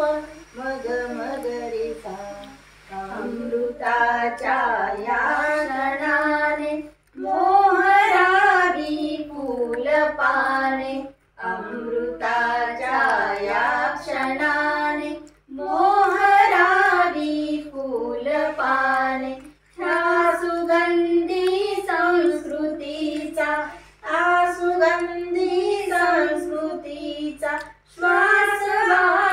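A young girl and a woman singing a Marathi welcome song (swagat geet) together without instruments. It comes in sung lines of about four seconds, with a short breath between each.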